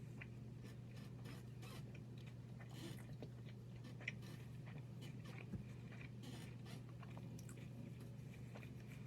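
A person chewing a mouthful of crispy chicken wrap: faint, irregular mouth and chewing noises with a few small clicks, over a steady low hum.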